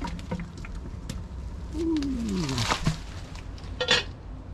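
Aluminium cooking pots clinking and knocking as they are handled at a wood fire, with a sharper clank just before the end. A short falling call sounds about two seconds in.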